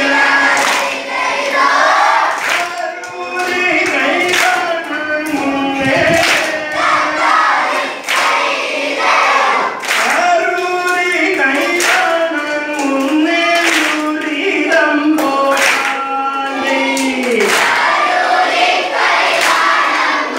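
A group of voices singing an Aranmula vanjippattu, the Kerala snake-boat song, in chorus, with sharp hand claps keeping time about once a second.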